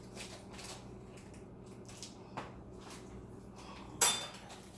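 Kitchen handling sounds over a low steady hum: a few light clicks and taps, then a short, louder clatter about four seconds in.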